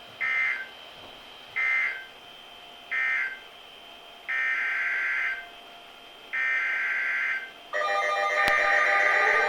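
Emergency Alert System (SAME) data bursts: three short warbling digital bursts, the end-of-message code closing the severe thunderstorm warning. Then come two longer bursts, the header of the next alert. Near the end a steady multi-tone alarm starts up, the EAS attention signal that introduces the tornado warning.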